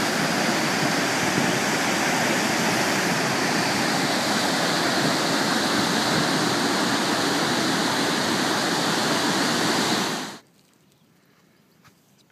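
Waterfall and river rapids: a steady, loud rush of falling whitewater that cuts off suddenly about ten seconds in.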